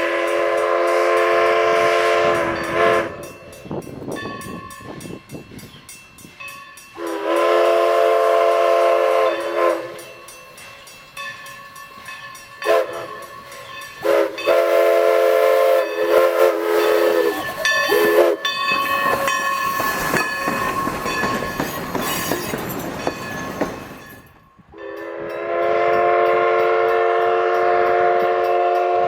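Northern Pacific five-chime steam whistle on Everett Railroad No. 11 blowing a chord of several tones in repeated blasts: long, long, short, long, the pattern of a grade-crossing signal. This is followed by the noise of the train running past, then another long blast near the end.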